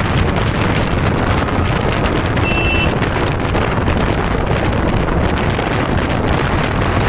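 Steady wind rush on the microphone of a moving Royal Enfield Bullet, with the motorcycle's single-cylinder engine running underneath. A short high beep sounds about two and a half seconds in.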